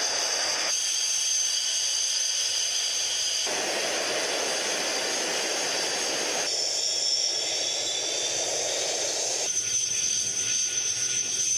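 Su-25 attack jets' twin turbojet engines running while the aircraft taxi: a steady high whine over a rushing roar. The tone and balance shift abruptly every few seconds as the footage cuts from one jet to another.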